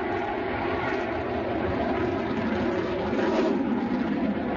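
Steady jet engine noise from a Sukhoi Su-27 fighter, its twin turbofans running as it flies low overhead.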